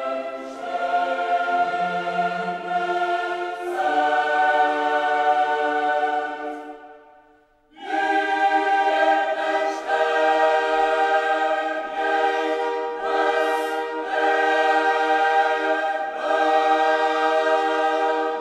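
Background music: a choir singing slow, sustained chords. It fades out about seven seconds in and comes back in a moment later.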